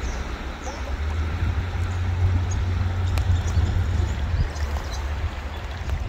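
River water rushing steadily under a loud low rumble that is strongest about two to four seconds in.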